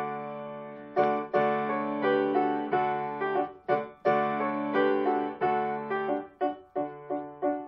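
Solo piano music: chords struck and left to ring, with a short break about three and a half seconds in.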